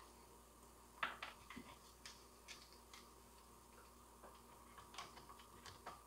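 Near silence broken by a few faint, scattered light clicks and taps: hands working at the plastic engine housing of a Jonsered GT21L string trimmer and setting a cordless drill/driver against it.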